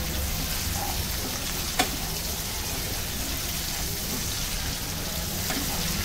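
Gatte (gram-flour dumplings) deep-frying in hot oil in a kadhai: a steady sizzle, with one short tap about two seconds in.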